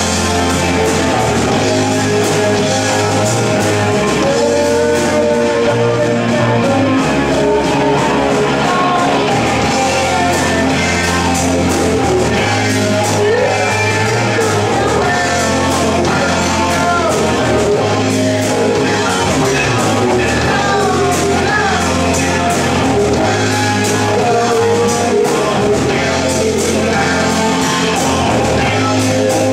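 Live rock band playing loudly: distorted electric guitar, electric bass and a drum kit keep a steady beat, with a singer's voice over the top.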